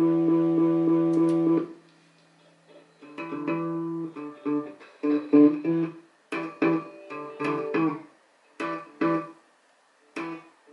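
Hollow-body electric guitar played through an Electra EP-401 digital delay. A held, repeating loop cuts off sharply after about a second and a half, then short notes and chords sound with delay repeats between them.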